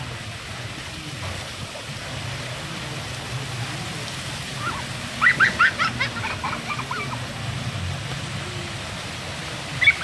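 Small rock waterfall splashing steadily over stones. About halfway through comes a quick run of short, high-pitched calls or squeals.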